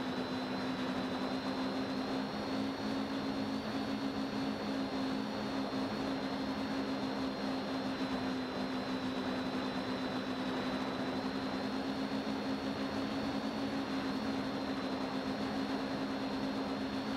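Quadcopter's electric motors and propellers running steadily, picked up by the onboard camera: a steady low hum with a faint high whine that drifts slightly in pitch.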